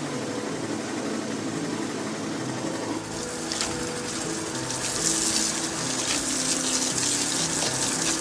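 A stream of water pouring into a plastic drum onto lumps of wet fibre pulp, starting about three seconds in and getting louder about two seconds later. A steady machine hum runs underneath throughout.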